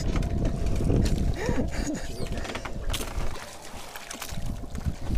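Sea water splashing and sloshing against the side of a small wooden fishing boat as a hand dips into it, over a faint steady hum and low rumble.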